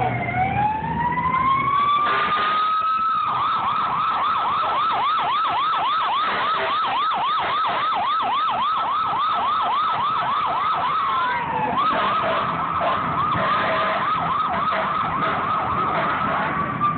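Fire engine's electronic siren: a slow rising wail that switches to a fast yelp of about three or four cycles a second. The yelp breaks briefly for a falling sweep about two-thirds of the way through, then resumes and eases back into a wail near the end.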